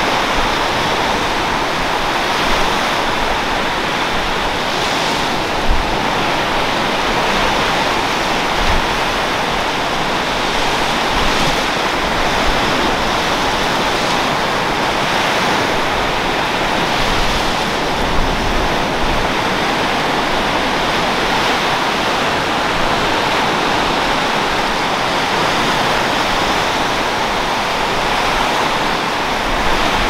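Ocean surf: waves breaking offshore and washing up a sandy beach, a steady wash of noise that gently swells and eases. A few brief low bumps of wind hit the microphone.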